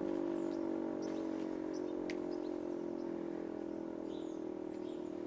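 E57 electric siren sounding a steady, many-toned howl that slowly gets quieter. Its rotor is turning backwards because the three-phase supply is wired with the wrong phase rotation. Faint bird chirps sound over it.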